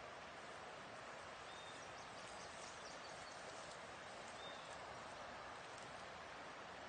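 Faint outdoor ambience: a steady soft hiss with two brief high bird chirps, about a second and a half in and again near the middle.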